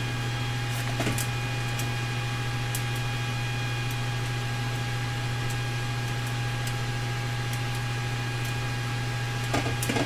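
A steady electrical hum with a faint higher whine over it, unchanging, and a few faint light ticks from handling small parts.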